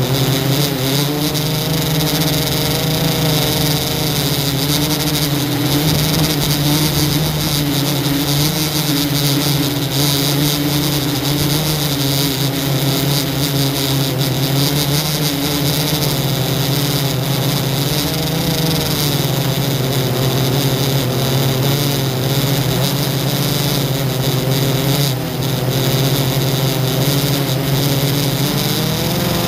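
FPV drone's electric motors and propellers buzzing steadily, heard from the onboard camera, with the pitch wavering up and down as the throttle changes. There is a brief dip a little before the end.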